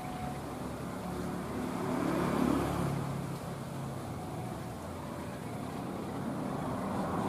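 Motor vehicles passing by with a steady engine hum, swelling briefly about two seconds in and again near the end.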